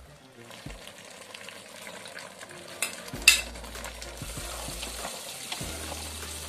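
A wooden spoon stirs freshly added grated okra through a hot, sizzling soup base in a metal pot. About three seconds in, the spoon knocks sharply against the pot twice.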